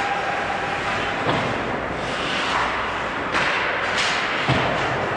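Ice hockey play around the net: skates scraping on the ice under the hollow rink noise. About four sharp knocks of puck and sticks come in the second half, as shots are taken on goal.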